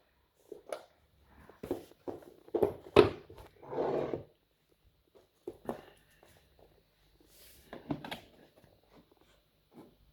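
Handling noise: a string of irregular knocks and clicks, the loudest about three seconds in, with a short rustle around the four-second mark.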